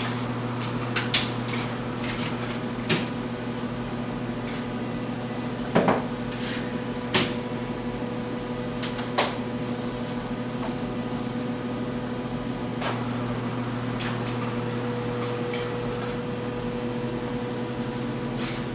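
A steady electrical hum runs throughout, with scattered sharp clicks and knocks: a digital scale and other objects being set down and handled on a counter.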